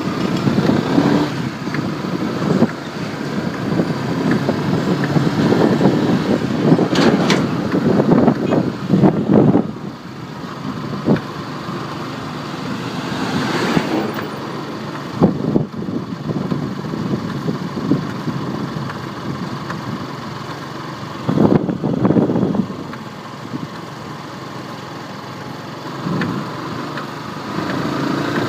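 Yamaha R15 V2 motorcycle's 150 cc single-cylinder engine running, rising and falling, with sharp clicks now and then. The owner hears this as a 'tak tak tick tick' clicking from the chain and sprocket, cause not known.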